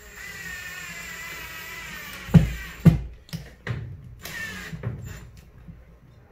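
Cordless drill/driver running against the wall with a steady whine for about two seconds, then two loud knocks about half a second apart, followed by a few short bursts of the drill and lighter clicks.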